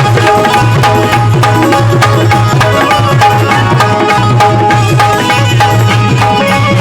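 Instrumental music from a live Indian devotional-song band: fast tabla-style hand drumming in a steady rhythm under a short repeating melodic figure, with a strong bass line.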